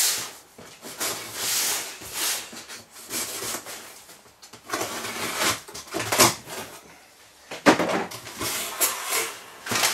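Cardboard shipping box being opened and handled by hand: packing tape pulled off, then cardboard flaps and contents rustling and scraping in short bursts, with a sharp knock about three-quarters of the way through.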